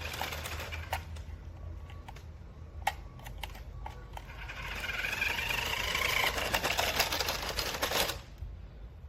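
Toy RC truck's small electric motor and plastic gears whirring, with scattered clicks; from about halfway it runs louder with a whine that rises and falls, then cuts off sharply near the end.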